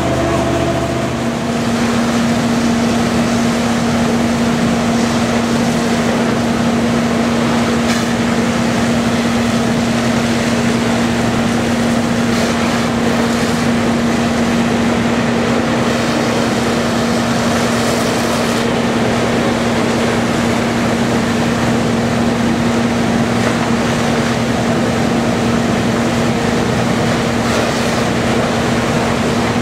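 Fire engine running steadily: a constant engine hum over a loud, even rush of noise.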